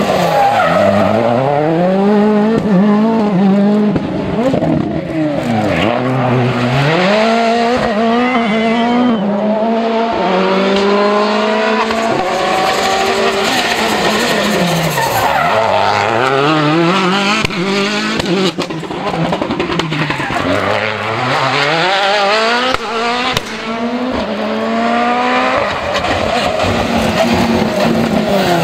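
2013 World Rally Car engines, 1.6-litre turbocharged four-cylinders, revving hard on a rally stage as the cars pass. The pitch climbs in quick steps through the upshifts and drops sharply several times on braking and downshifts.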